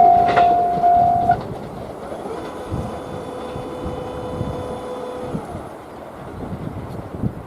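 A train passing over a level crossing, its wheels clacking over the rail joints. The crossing's warning alarm cuts off suddenly about a second in, and the train's rumble with a faint steady whine fades away.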